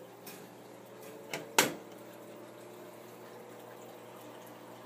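Steady hum of the TRS-80 Model II running with its fan on, with two sharp clicks about a second and a half in, the second much louder.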